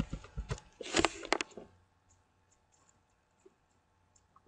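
Computer keyboard keystrokes, a quick run of clicks with a short burst of noise about a second in, stopping after under two seconds; then near quiet with a few faint clicks.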